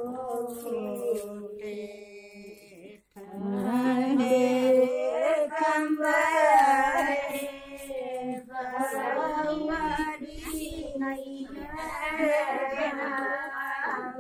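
A group of women singing a traditional wedding song together in long, drawn-out notes, with a short break about three seconds in.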